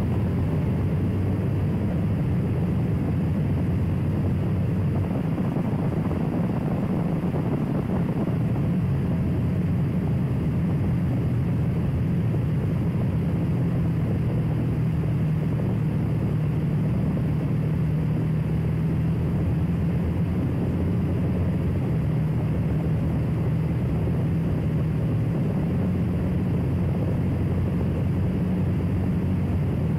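Motorcycle engine running steadily under way, its low hum shifting slightly in pitch, with wind rushing over the microphone.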